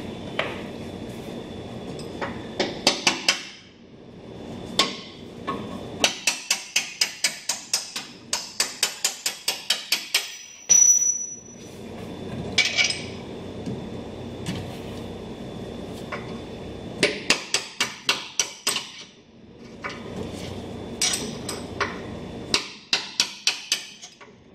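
Hammer blows on a small brass drift, driving out the 80 Series Land Cruiser's rear control arm bolts, in quick runs of about three or four strikes a second with pauses between. A short, high metallic ring about halfway through.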